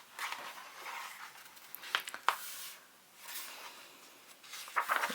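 Paper rustling with a few light clicks and taps: a picture book's page being handled and turned.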